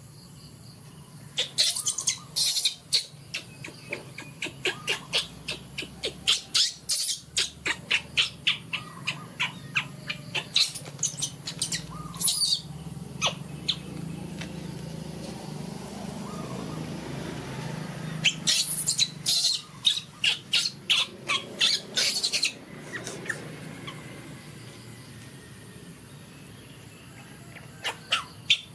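Baby macaques giving rapid series of short, sharp, high-pitched squeaking calls, about two a second, in two long bouts with a few more calls near the end.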